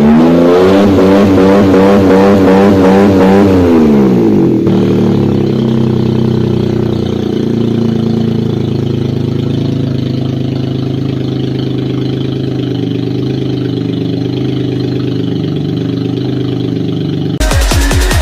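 Honda N-WGN's small three-cylinder engine being revved up and down several times, then dropping back to a steady idle after the engine replacement. Electronic music cuts in abruptly near the end.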